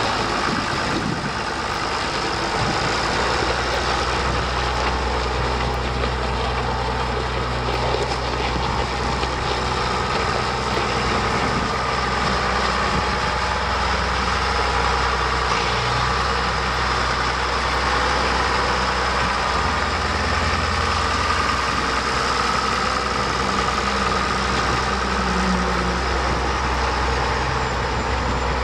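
John Deere 7600 tractor's six-cylinder diesel engine running steadily at idle.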